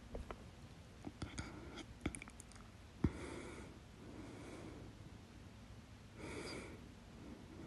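A person hiccuping: one sharp hiccup about three seconds in, with the breath drawn right after it. Quiet breathing and a few faint mouth clicks come around it.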